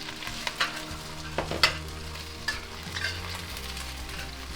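Sliced five-spice dried bean curd sizzling as it fries in hot oil to brown, with a steady hiss. Several sharp clicks of a utensil against the pan as the slices are stirred.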